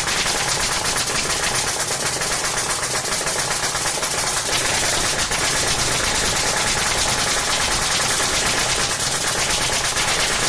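Nail gun firing nail after nail in a fast, steady stream of sharp shots.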